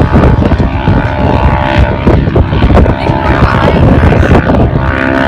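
A distant off-road vehicle's engine running hard as it climbs a steep sand dune, a steady engine note that grows stronger in the second half, over heavy wind rumble on the microphone.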